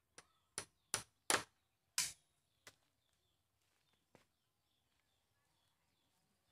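A hand tool striking bamboo poles: about seven sharp knocks at uneven intervals, the loudest in the middle, with the last faint one about four seconds in. Small birds chirp faintly throughout.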